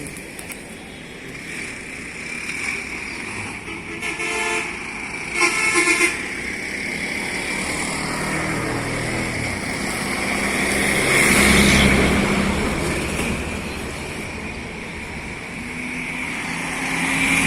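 Road traffic passing, with a vehicle horn honking twice in quick succession, the second louder, about four and five and a half seconds in. A vehicle passes close a few seconds later and another approaches near the end.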